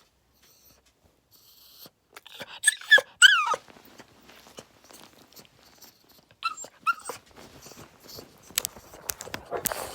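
A dog whining in a few high-pitched, falling whines about two and a half to three and a half seconds in, then two more short whines near the seven-second mark, with scattered small clicks and scratches between them.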